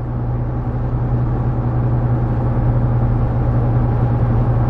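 Steady engine drone and road noise inside a car's cabin while driving: a low, even hum over a broad rush of tyre noise, getting a little louder after the first second.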